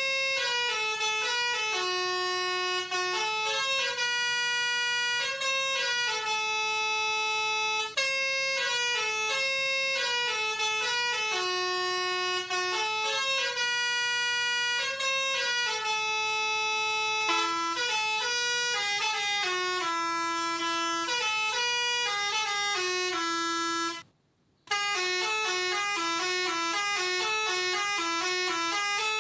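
Pianika (melodica) playing a basuri telolet bus-horn tune: steady reedy notes, mostly in two-note harmony, stepping up and down through the melody, with a half-second break about 24 seconds in.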